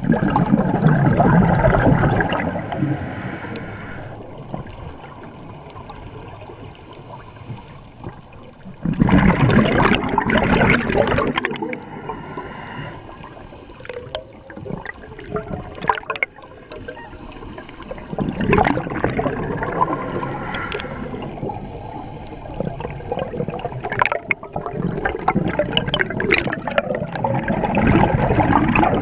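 Scuba regulator exhaust bubbles, heard underwater: a loud bubbling rush of about three seconds each time the diver breathes out, four times, roughly every eight or nine seconds, with quieter stretches between.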